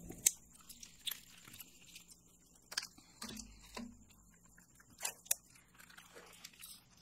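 Chocolates being bitten and chewed: faint, irregular short crunches and clicks a second or so apart.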